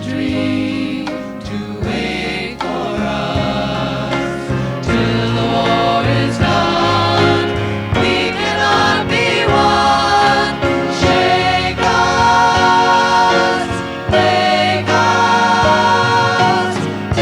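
A group of voices singing a song together, holding long sung notes.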